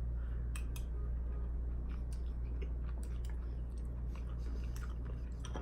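A person chewing wonton soup close to the microphone, with small wet mouth clicks scattered through, over a steady low hum.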